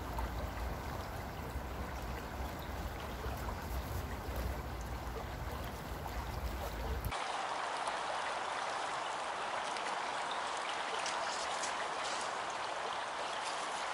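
Steady rushing of a nearby stream. A low wind rumble on the microphone lasts for the first seven seconds or so, then stops.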